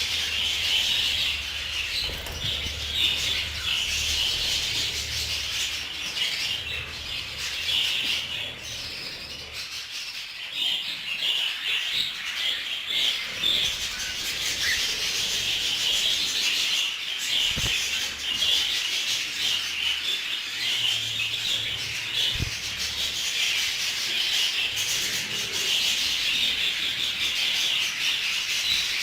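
A colony of budgerigars chattering and warbling continuously: a dense, unbroken twittering of many birds at once.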